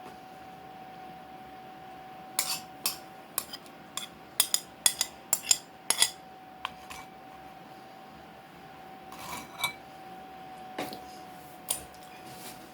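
A spoon clinking and scraping against a bowl: a quick run of a dozen or so clinks, then a few more spaced out near the end.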